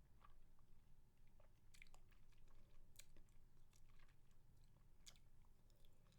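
Faint, close-miked mouth sounds of chewing on a spicy mango lollipop: soft wet clicks, three of them sharper than the rest, over a low steady hum.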